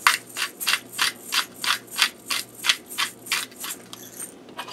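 Hand-twisted pepper mill grinding peppercorns: a rhythmic gritty scraping, about three twists a second, that stops near the end.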